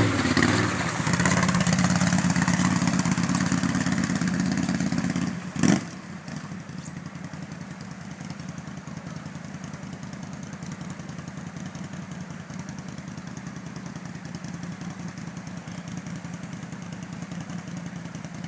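Quad bike (ATV) engine running steadily. About five and a half seconds in there is one sharp clack, after which the engine sounds quieter for the rest of the time.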